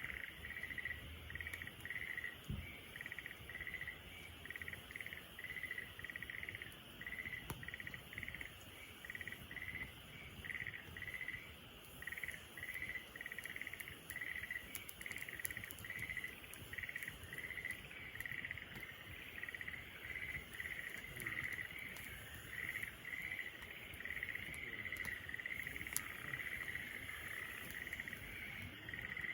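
Insects chirping in a steady train of short repeated chirps, with a few faint sharp crackles from a wood fire now and then.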